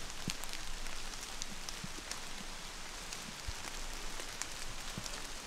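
Rain falling on leaves and foliage: a steady hiss with many small drops ticking at irregular moments.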